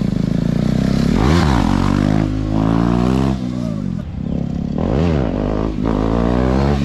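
KTM motorcycle engine being revved, its pitch rising and falling with each throttle blip; the sharpest blips come about a second in and again about five seconds in.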